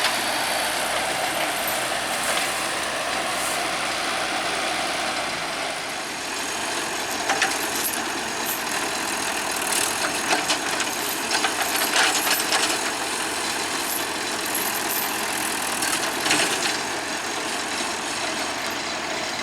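Heavy machinery engine running steadily, with scattered short clicks and knocks through the middle.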